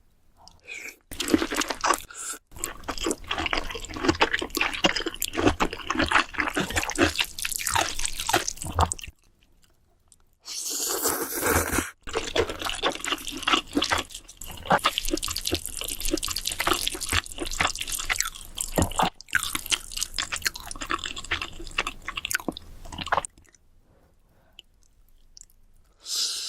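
Close-miked eating sounds: wet chewing and slurping of food in two long, dense runs of mouth clicks and smacks, with a short pause about nine seconds in.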